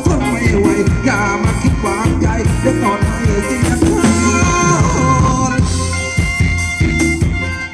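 Live band playing Thai ramwong dance music: a steady drum-kit and bass beat under a sung melody, with held organ-like chords coming in near the end.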